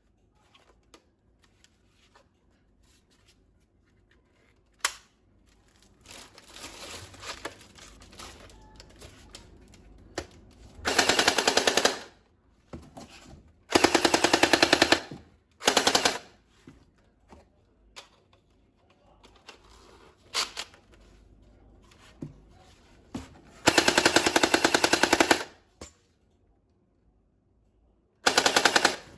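Toy machine gun firing about five short bursts of rapid-fire shooting sound, each lasting up to two seconds. Quieter clicks and handling noise come between the bursts.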